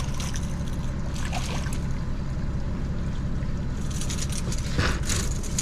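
Honda outboard motor running steadily at trolling speed, with a hooked small striped bass splashing at the surface as it is reeled to the boat. The splashing is strongest about four to five seconds in, as the fish is lifted from the water.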